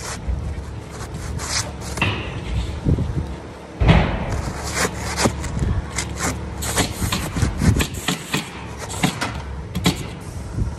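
Handwork noises: objects scraped and rubbed with many sharp knocks and clicks, a heavy knock about four seconds in.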